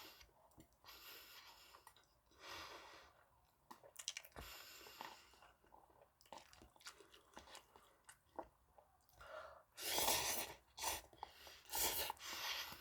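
Close-miked chewing of rosé buldak stir-fried noodles: a run of small wet mouth clicks and short noisy bursts, with two louder stretches of noise near the end.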